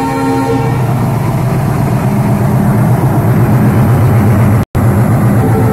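WDM-3A diesel locomotive passing close: its multi-tone horn chord cuts off about half a second in, then the heavy low throb of its ALCO diesel engine builds and holds as the locomotive goes by. The sound drops out for an instant near the end.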